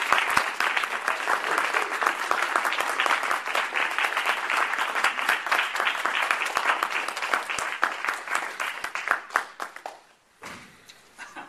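Audience applauding, many hands clapping together, thinning out and dying away about ten seconds in.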